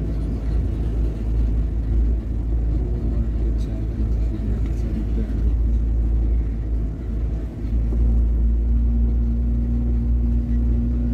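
Car engine and tyres rumbling over a rough lane, heard from inside the cabin. About eight seconds in, a steady hum joins the rumble.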